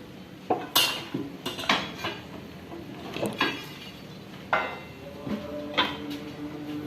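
Metal parts of a sawmill knocking and clanking together as they are handled, about seven sharp clanks with a brief metallic ring. A steady low hum comes in after about five seconds.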